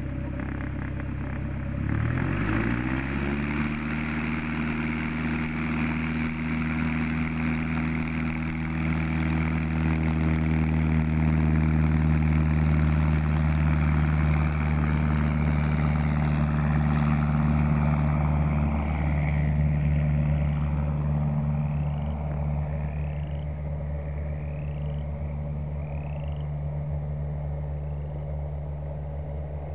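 Cessna 172's engine and propeller throttling up to full power about two seconds in, the drone rising in pitch and then running steady through a soft-field takeoff roll and liftoff. The drone fades as the plane climbs away.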